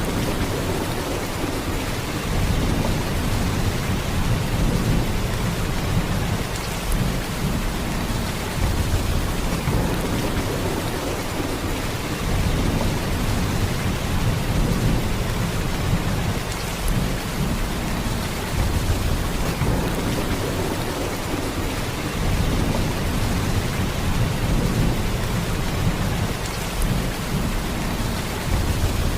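Heavy rain falling in a steady downpour: a dense, even hiss with a deep low rumble underneath, swelling and easing slightly.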